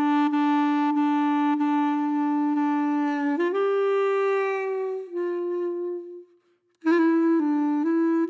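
Background music: a slow solo melody on a single reed-like instrument, a long held note, then a higher note that sags downward, a brief pause about six seconds in, and shorter stepping notes after.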